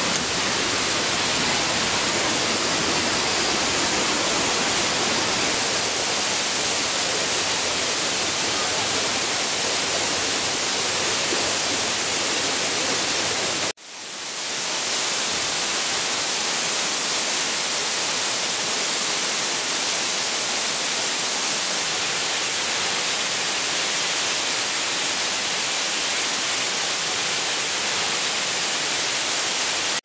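Steady rushing of a stream and waterfall, an even hiss. It drops out suddenly about halfway through and fades back in, a little thinner in the low end afterwards.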